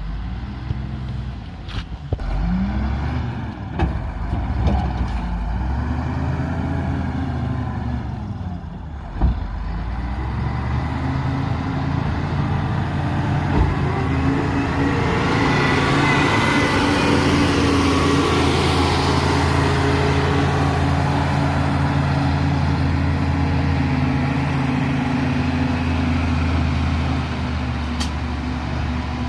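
Diesel engine of a heavy earthmoving machine working: the engine speed rises and falls over the first several seconds, then holds steadier and louder. A few sharp knocks come through, the strongest about nine seconds in.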